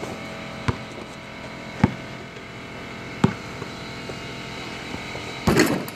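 A steady mechanical hum, with a few sharp knocks spaced about a second apart and a brief loud burst of rustling noise near the end.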